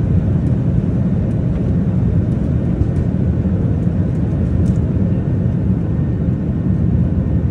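Loud, steady low rumble of an airliner's engines and airflow heard from inside the passenger cabin.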